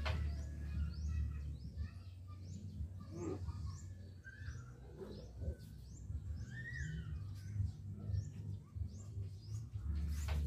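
A small bird chirping over and over, short falling peeps about twice a second, over a low steady rumble.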